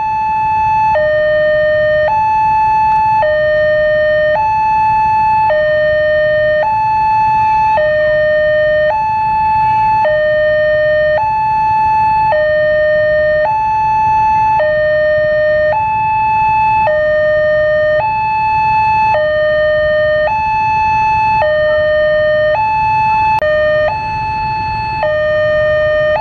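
Electronic two-tone warning alternating steadily between a high and a lower note, each held about a second.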